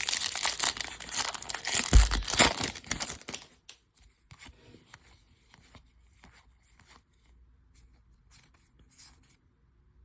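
Foil baseball-card pack wrapper being torn open and crinkled for about three seconds, with a dull thump partway through, then faint light clicks and rustles of cards being handled.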